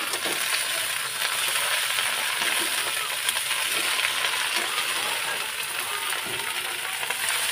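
Hot oil sizzling steadily in a kadhai, where freshly washed saag greens have just gone in on top of browned onions.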